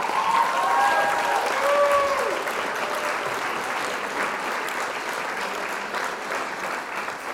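Crowd applauding and cheering, with a few whistles in the first two seconds; the applause eases off gradually.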